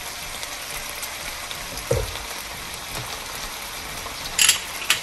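Vegetables sizzling steadily as they sauté in butter in a nonstick frying pan, just after soy sauce has been poured in. A dull knock about two seconds in and a few sharp clicks near the end.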